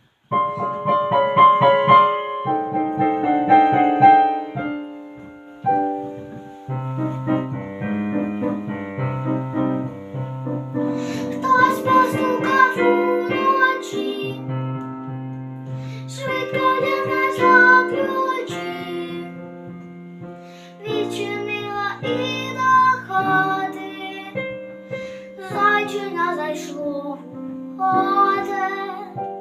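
A keyboard plays an introduction, and a girl's singing voice comes in about eleven seconds in over the keyboard accompaniment.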